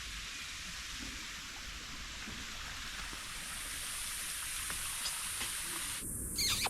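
Small waterfall running, a steady rushing splash of falling water. Near the end the rush cuts off abruptly and a short high chirp sounds.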